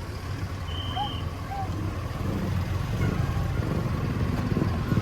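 A road vehicle's engine running, growing steadily louder as it draws nearer, with a brief high tone about a second in.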